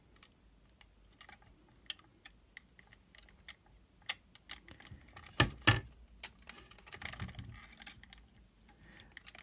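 Light scattered clicks and taps of fingers handling the clock hands on a diamond-painting clock face, with two louder knocks about five and a half seconds in.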